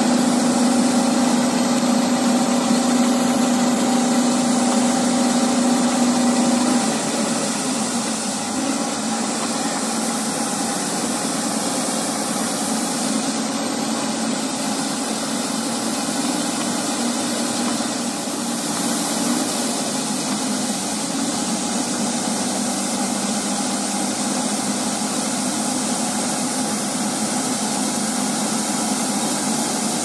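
Vishal 435 combine harvester running steadily while unloading wheat grain through its auger. A steady hum drops away about seven seconds in, and the sound eases slightly.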